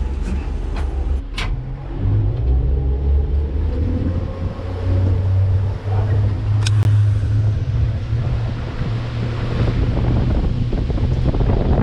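Water taxi's engine running with a low hum, its pitch rising as the boat gets under way, with a couple of sharp clicks. Wind on the microphone and rushing water grow louder toward the end.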